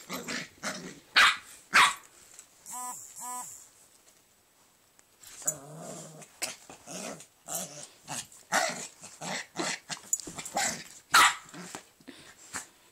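Pomeranian and pit bull play-fighting: repeated short barks and growls, with two brief higher-pitched calls about three seconds in and a short lull after them.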